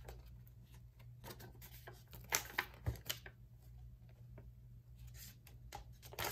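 Folded paper airplane being handled by hand: scattered soft paper rustles and taps, a few louder ones about two and a half to three seconds in, over a low steady hum.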